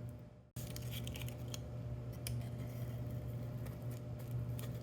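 Faint handling noises from craft work: a few small clicks and rustles over a steady low electrical hum, after a brief dropout to silence near the start.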